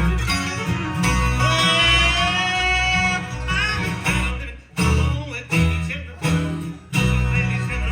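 Bluegrass music with acoustic guitar and other plucked strings. The sound drops out briefly several times in the second half.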